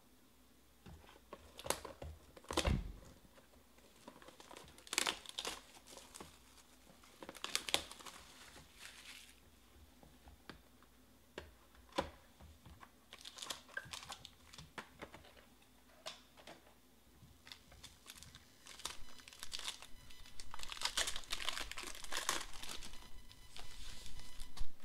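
A box of Panini Obsidian basketball cards being handled and opened by hand: scattered clicks and short crinkles of cardboard, with a dull knock about three seconds in. From about 20 seconds in, a steady run of crinkling and tearing as the shiny pack wrapper is torn open.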